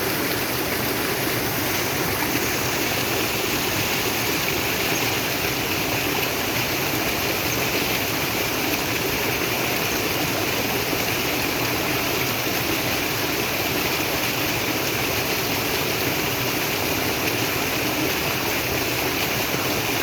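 Natural flowing water running steadily, an even, unbroken rush.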